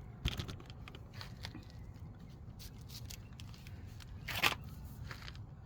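Brake parts and tools being handled during a caliper service: scattered small clicks and scrapes, with one louder scrape about four and a half seconds in.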